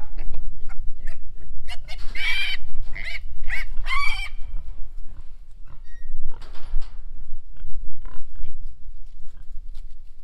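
Pigs squealing and grunting: several loud, high piglet squeals come in quick succession about two to four seconds in, with short grunts from the feeding herd before and after.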